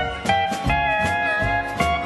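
Pedal steel guitar taking an instrumental break, its held notes sliding and bending in pitch over the country band's steady beat.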